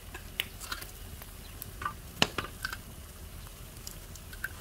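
Sparse light crackles and clicks over a faint low hum, with one sharper click about halfway through, from a pot of water boiling hard over a fire.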